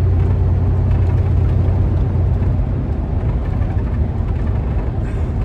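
Van engine and road noise heard from inside the cab while driving, a steady low drone that eases off a little about halfway through.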